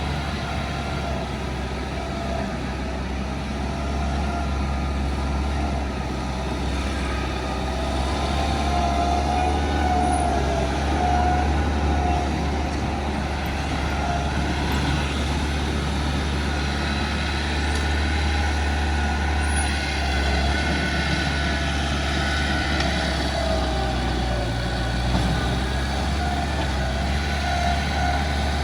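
Bulldozer's diesel engine running steadily under load, with a wavering high whine over the deep engine drone.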